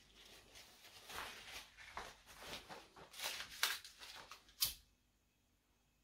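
Irregular rustling and scraping handling noises, ending in one sharp click at about four and a half seconds in.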